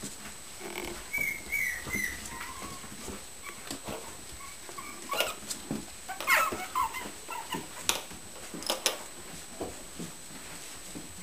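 Mini Shichon puppies at play, giving short high-pitched squeaks and yips, with scattered sharp clicks and knocks.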